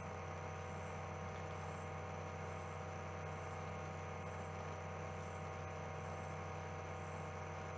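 Steady electrical hum and buzz with a faint hiss, unchanging throughout, with no speech.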